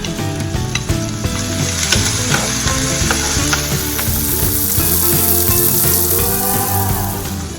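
Vegetables sizzling as they sauté in a hot pan, with occasional stirring ticks. The sizzle grows louder about halfway in.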